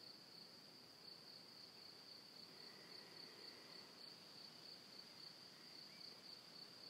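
Near silence with a faint, steady, high-pitched insect trill, typical of a cricket.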